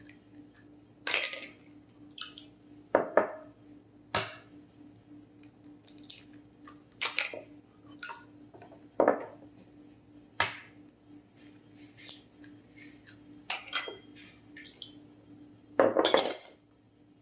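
Eggs tapped and cracked against a glass bowl and their shells dropped into a small glass dish: about ten separate sharp taps and clinks of shell on glass, the longest near the end. A faint steady hum lies underneath.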